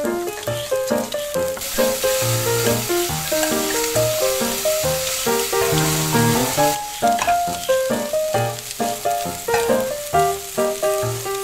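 Hot oil sizzling as battered vegetables deep-fry in a miniature pot. The sizzle starts about one and a half seconds in and stops about seven seconds in, over light background music that plays throughout.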